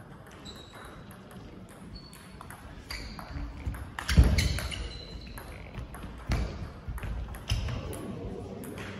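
Table tennis rally: the celluloid-type ball clicking off the rubber bats and the table in a quick back-and-forth, with a heavier thud about four seconds in.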